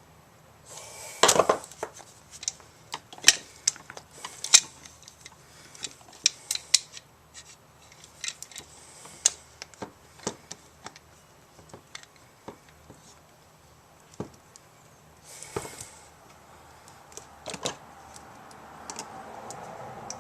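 Irregular clicks and taps of hand tools and plastic plug parts as a replacement male cord cap is fitted to an extension cord. There are short scraping rustles about a second in and again about fifteen seconds in.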